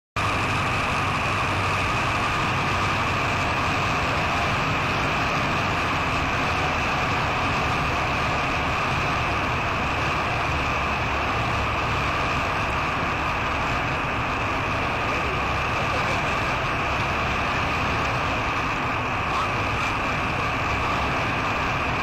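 Steady cabin noise of a 1946 Aeronca Champ in flight on a landing approach: the engine and propeller running with the rush of wind, at an even level throughout.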